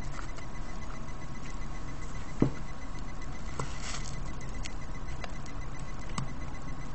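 Small sharp clicks and a brief scrape from prying at a Nexus One's casing latches, the loudest click about two and a half seconds in, over a steady low electrical hum.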